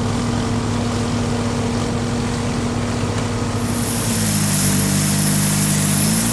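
Mechanical aquatic weed harvester's engine running steadily while it cuts and conveys water hyacinth. About four seconds in, the engine note drops lower and a steady hiss joins in.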